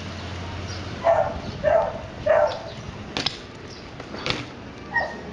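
A dog barking: three short barks about half a second apart starting about a second in, then another near the end. Two sharp knocks come between them, about three and four seconds in.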